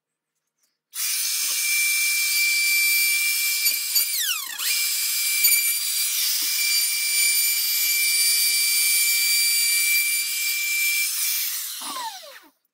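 Hand-held wood router running with a high whine as its bit mills a barrel groove along a wooden rifle-stock blank. A little after four seconds in, the motor pitch dips briefly under load and recovers, and near the end the pitch falls as it winds down.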